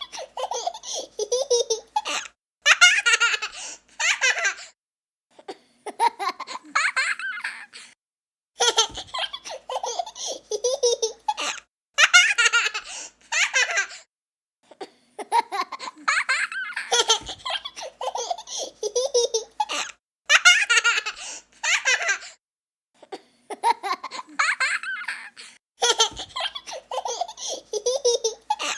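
A young child laughing in repeated high-pitched bouts of giggles, each a second or few long, with short pauses in between.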